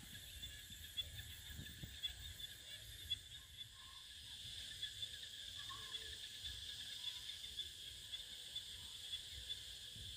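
Faint evening chorus of calling insects, a steady high shimmering trill, over a low rumble of wind and handling noise with a few soft clicks.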